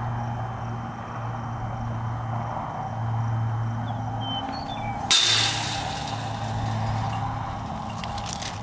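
A pitched baseball striking the chain-link backstop, a single sharp smack about five seconds in with a brief rattle after it, over a steady low hum.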